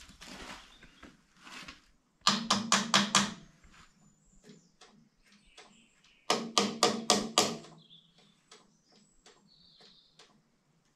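Two bursts of rapid metallic clicking, each lasting about a second and a few seconds apart, with fainter scattered clicks and knocks between them, from hand work on the old diesel engine of a David Brown 990 tractor.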